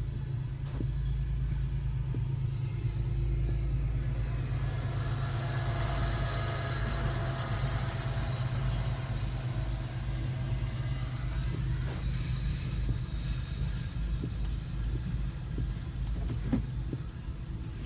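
Low steady rumble of a car idling, heard from inside the cabin. A freight train's passing noise swells through the middle, with faint steady tones in it.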